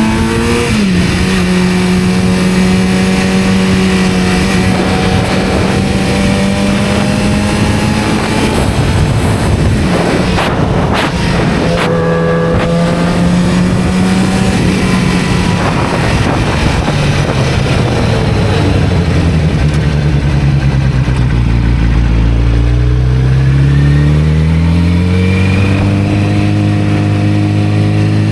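1991 Kawasaki ZZR-400's inline-four engine running at a steady cruise, with wind noise rushing over the microphone. About two-thirds of the way through, the revs fall away as the bike slows, then rise again as it accelerates near the end.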